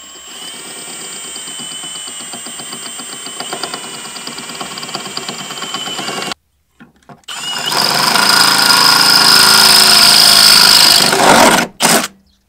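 Cordless drill boring a hole through the Jeep TJ's steel rear body bracket for a backing plate. It runs as a steady whine for about six seconds, stops briefly, then runs louder and harsher for about four seconds as the bit bites, with one short final burst near the end.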